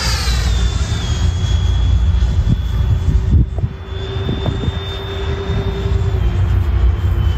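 Twin 80 mm electric ducted fans of a Freewing MiG-29 RC jet whining as it flies overhead. The pitch falls during the first second as it moves away, then holds steady and steps down slightly near the end. Wind rumbles on the microphone underneath.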